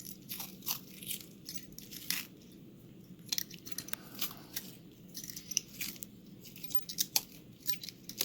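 Tape being peeled and unwound from a key: irregular crackling and crinkling with sharp little clicks.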